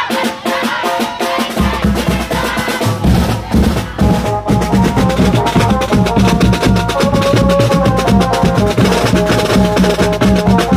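Live street-band music at full volume: a large bass drum and a metal-shelled side drum beaten with sticks in a steady dance rhythm under a melody of held, stepped notes. The drums come in strongly about one and a half seconds in.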